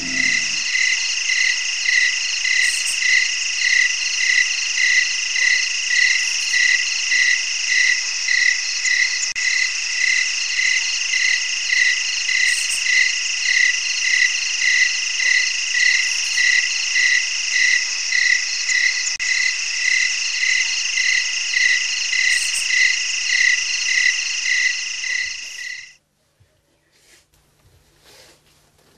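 Night chorus of insects and frogs: a steady high trill with a regular chirp about twice a second. It cuts off suddenly near the end.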